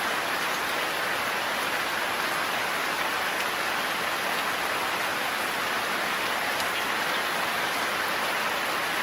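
Heavy rain falling in a forest: a steady, even hiss of downpour with no thunder.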